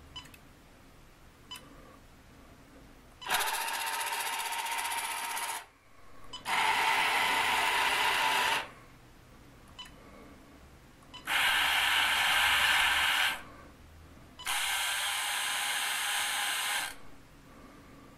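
Small electric drive of a 1962 toy excavator, motor and gearing, running in four separate bursts of about two seconds each. The bursts are the machine stepping through its moves under relay control. A few faint clicks come in the gaps.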